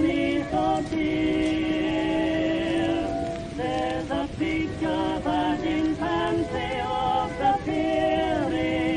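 Old-time recorded music, a vocal group singing in close harmony, with an even hiss beneath.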